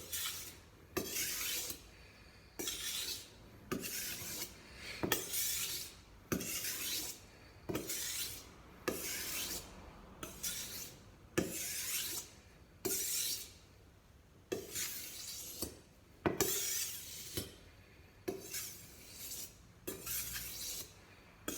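Knife blade drawn along a wet whetstone in a steady series of scraping strokes, a bit more than one a second, some in quick pairs: the finishing passes, one stroke on each side of the edge in turn.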